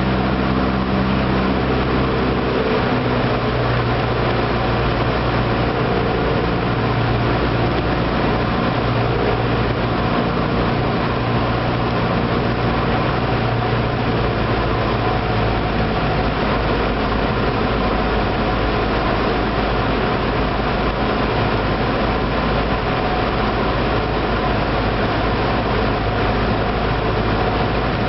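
Cessna 172's piston engine and propeller running steadily, heard loud from inside the cockpit, its tone shifting a little about three seconds in.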